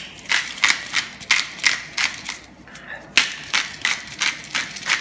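Hand-twisted pepper grinder cracking black peppercorns: a run of short crunching strokes, about three a second, with a short break about halfway.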